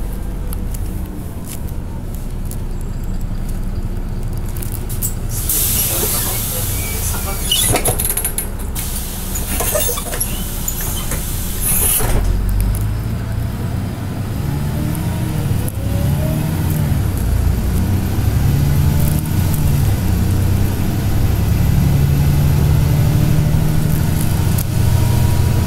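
Interior sound of a LiAZ 6213.22 diesel city bus: engine running, with two loud hisses of compressed air, about six seconds in and again about twelve seconds in. After that the engine note rises and drops in repeated steps as the bus pulls away and changes gear.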